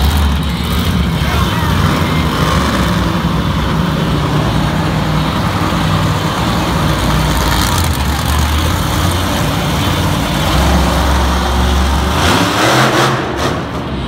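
Monster truck engines running loudly, swelling in level now and then as the trucks drive and rev.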